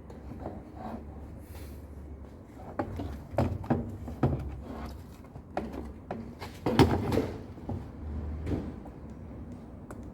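Irregular clicks, knocks and rattles of plastic panel parts and a circuit board being handled and pried loose during disassembly of a washing machine's control panel, with the loudest knock about seven seconds in, over a steady low hum.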